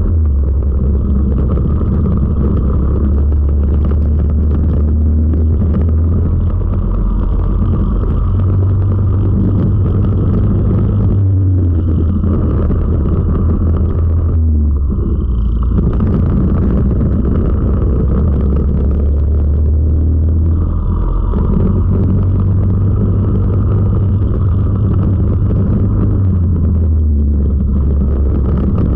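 Four-stroke racing kart engine heard from the kart's own onboard camera, running hard at racing speed. Its note rises and falls several times as the kart accelerates and lifts through the corners.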